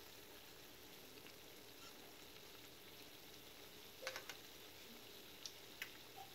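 Beignet dough deep-frying in oil on low heat: a faint, steady sizzle. A few light clicks of a metal fork against the dough and the aluminium pot come about four seconds in and twice more near the end as the beignets are turned.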